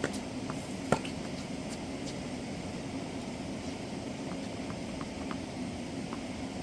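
Two sharp tennis ball impacts, one at the start and a louder one about a second later, with fainter ball sounds scattered after. A steady background hiss and hum runs underneath.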